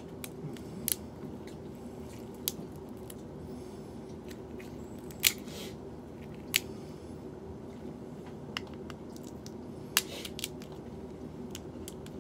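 Cooked shrimp shells being peeled and cracked by hand: scattered sharp cracks and clicks, irregular and a second or more apart, over a steady low hum.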